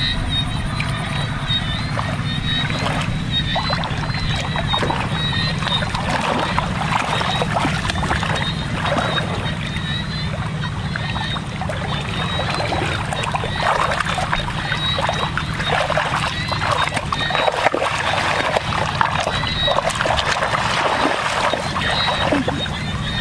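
Shallow muddy water splashing and sloshing as hands grope through it and legs wade, in many irregular small splashes, over a steady low rumble.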